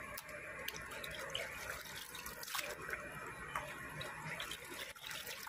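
Water dripping and trickling from freshly washed raw chicken pieces draining in a perforated aluminium colander.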